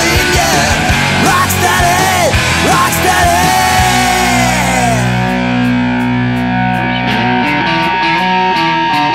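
Background rock music. About four seconds in, the drums drop out, leaving held sustained chords.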